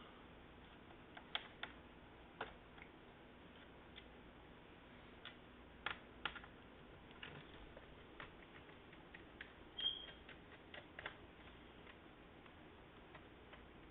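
Faint, scattered clicks and ticks of a small precision Phillips screwdriver turning screws and metal parts being handled on a laptop's screen mounting bracket, with a slightly louder click about ten seconds in.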